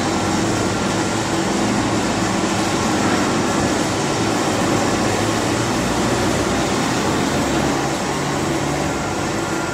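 Wood strip ripping saw machine running steadily, its motors humming under a loud mechanical whir; the sound comes in suddenly at the start.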